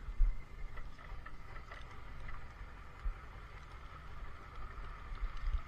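A vehicle engine running steadily, with wind rumbling and buffeting on the microphone.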